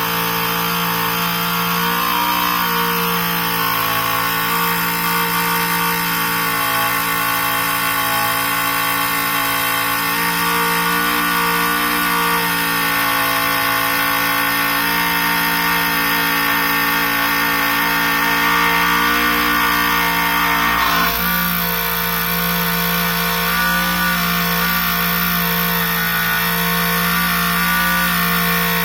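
CNC-converted Warco milling machine cutting a seal groove, its spindle and cutter running steadily with a loud, noisy cut made of several steady tones. The tones change abruptly about two-thirds of the way through. The noise is probably due to the way the part is held and the type of cutter.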